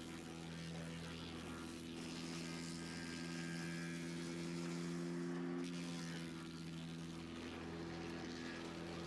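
Vermeer BC600XL wood chipper's engine running at a steady speed, a constant hum with no change in pitch.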